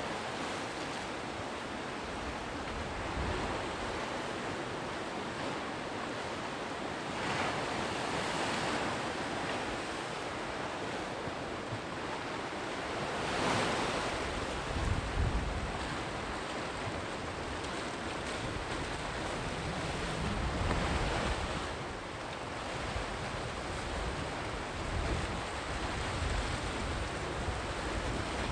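Sea surf washing on the shore, swelling as a wave breaks every several seconds, with low rumbles of wind on the microphone at times.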